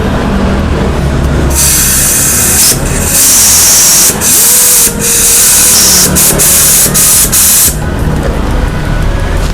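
Air-powered vacuum brake bleeder hissing loudly, starting about a second and a half in and running for some six seconds with several brief breaks as the trigger is let off, drawing old fluid out through the rear brake caliper's bleed nipple during a brake fluid flush.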